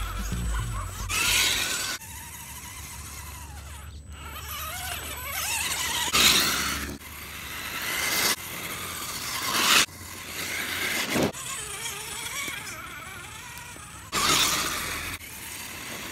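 Axial Wraith RC rock crawler's electric motor and gears whining as it drives over dirt and rock, the pitch rising and falling with the throttle. Several short, louder bursts of noise break in along the way.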